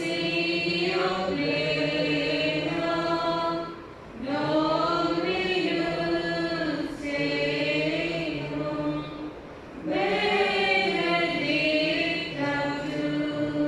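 A group of voices singing a hymn in long, held phrases, with short breaths between phrases about four and ten seconds in.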